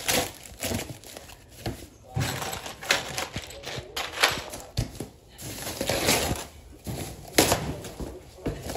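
Plastic packing wrap and foam sheeting rustling and crinkling as they are handled and pulled off an unboxed item, in irregular bursts with a few sharp crackles.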